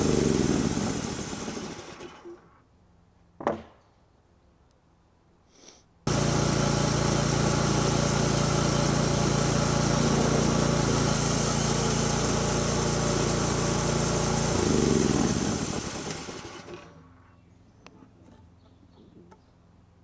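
Homemade band sawmill's 6.5 horsepower gas engine shutting off and winding down with falling pitch, followed by a few quiet seconds with a single knock. From about six seconds in it is running steadily again until it shuts off and winds down once more, with faint knocks near the end.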